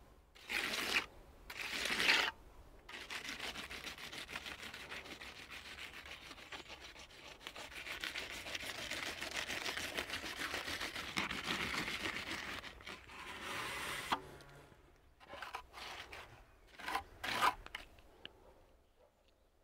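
Hand trowel scraping and rubbing over wet concrete in a wall-capping form, smoothing the surface as the water comes to the top. A few short strokes, a long stretch of continuous rubbing, then a few more short strokes near the end.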